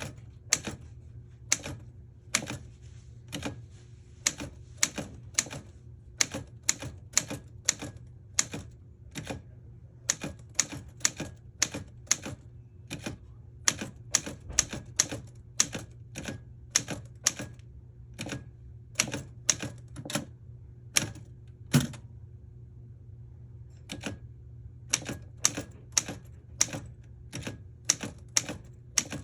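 Vintage cipher typewriter being typed on: sharp single key strikes at an uneven pace of about two a second, with a couple of short pauses, over a low steady hum.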